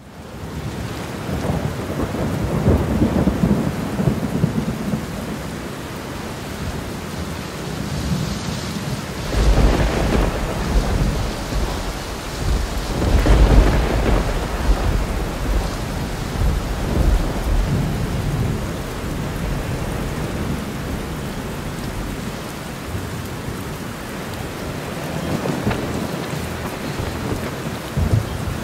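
Thunderstorm: steady heavy rain with long rolls of thunder, the loudest about ten seconds in and again about thirteen seconds in.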